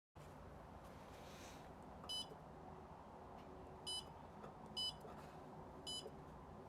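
Digital controller of an Evenheat heat-treating oven giving four short, high electronic beeps at uneven intervals, over a faint steady low hum.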